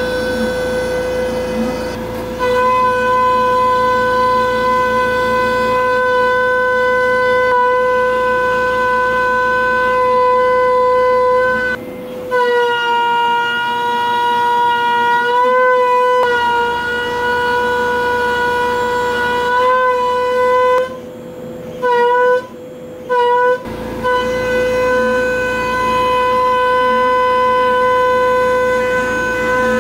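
Pocket NC v2-50 desktop CNC mill's spindle giving a steady high-pitched whine as the end mill cuts 6061 aluminium. The pitch sags and wavers for a few seconds midway, and the sound cuts out briefly three times near the end.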